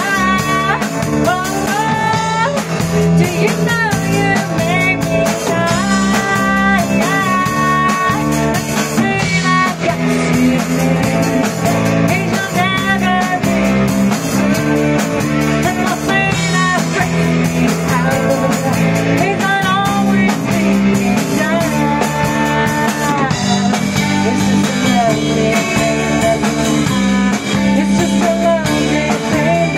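Live band playing together: a woman singing a melody over acoustic and electric guitars and a drum kit.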